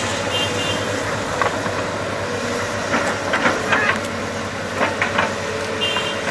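Hitachi hydraulic excavator's engine running steadily with a low hum, with a few sharp cracks and clicks about three and five seconds in and brief high squeaks at the start and near the end.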